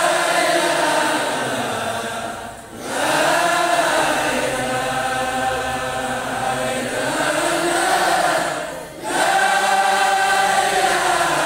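Men's voices chanting a religious chant in long, drawn-out phrases, with two brief breaks for breath, about three and nine seconds in.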